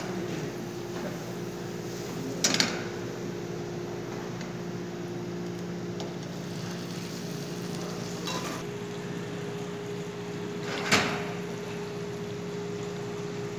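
Sauce sizzling in a frying pan on a gas stove over a steady hum. Metal cookware clanks sharply twice, about two and a half seconds in and again about eleven seconds in, with a lighter knock in between.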